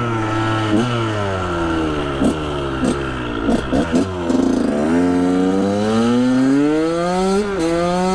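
KTM 125 SX single-cylinder two-stroke motocross engine under riding load. Its revs fall over the first half with several short, sharp throttle blips, then climb steadily as it accelerates, with a brief dip near the end like a gear change before it pulls again.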